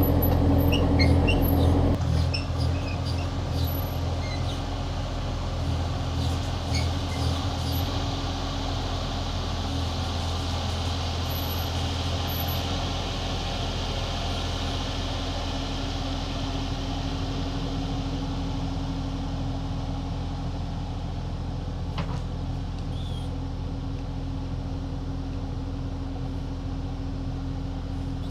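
Excavator engine running steadily, louder for the first couple of seconds and then settling to a lower, even level. Short high squeaks come through in the first several seconds.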